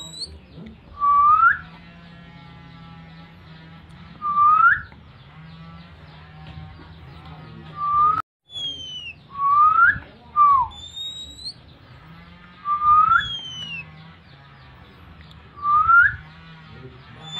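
Short, clear whistles used as a call to draw out an oriental magpie-robin (kacer) in breeding condition. Each is a quick upward sweep, repeated every two to three seconds, with a couple of falling whistles around the middle.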